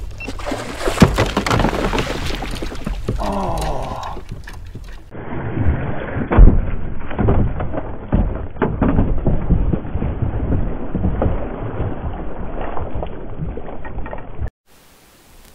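Water splashing and knocks against a kayak as a hooked musky is fought alongside, with wind rumbling on the microphone. One loud sharp thump comes about six seconds in, and the sound cuts off suddenly near the end.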